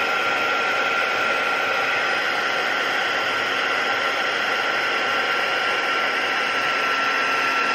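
Embossing heat tool running steadily: a rushing fan with a steady high whine, blowing hot air to melt gold embossing powder on stamped cardstock.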